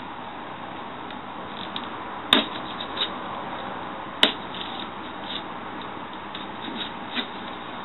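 Cardboard box and packaging being opened and handled, with two sharp snaps about two and four seconds in and fainter rustles and ticks between.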